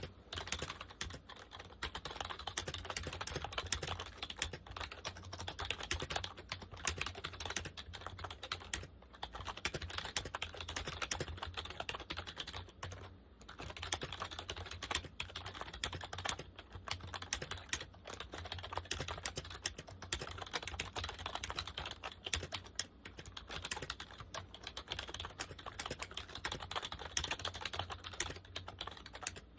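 Compaq KB-3923 rubber dome keyboard being typed on quickly and continuously: a dense run of soft key clicks with brief pauses, over a steady low hum.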